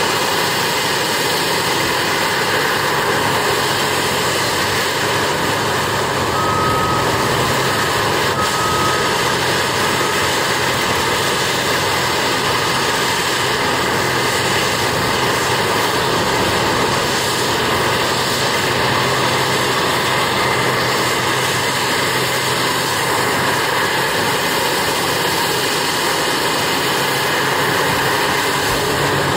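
Heavy mining machinery, a Cat 6015B hydraulic excavator working with Cat 785 haul trucks, with diesel engines running steadily and unbroken. Two short beeps sound about 7 and 9 seconds in.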